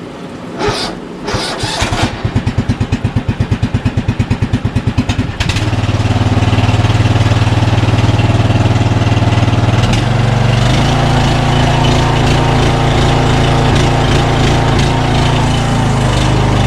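Electric starter cranking a battery-started lawn mower engine with an even pulsing of about eight beats a second for some three and a half seconds, after a couple of short clicks; the engine then catches and runs steadily, its note changing about ten seconds in. The mower is starting on a replacement battery after failing to crank on the old one.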